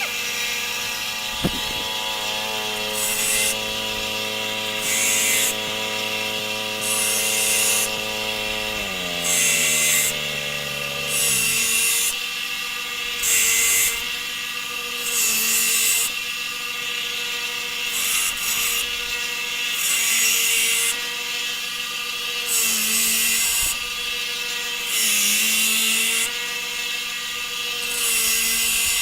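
Belt grinder running, with a forged steel knife blade pressed to the belt in repeated passes: a loud grinding hiss swells and fades every two seconds or so over the motor's steady hum, as the edge is ground down.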